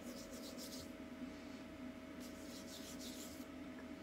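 Soft swishing of oily palms rubbed against each other in two short spells, over a faint steady hum.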